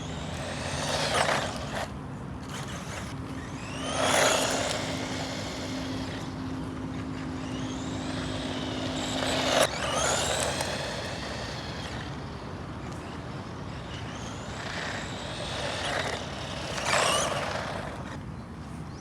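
SCY 16102 1/16-scale 4x4 RC car's electric motor whining up and down in pitch about five times as the car speeds up and slows, over a steady rush of tyre and drivetrain noise.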